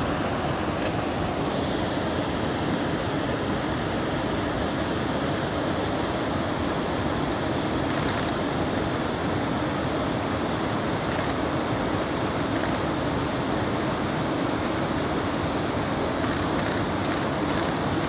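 Steady rush of water pouring over a fast-flowing river weir, loud and unbroken.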